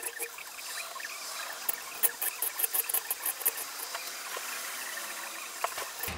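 Triangular hand file rasping across the teeth of a Silky Sugoi pull-saw blade clamped in a steel bench vise, in short quick strokes several times a second, sharpening the dull teeth one by one.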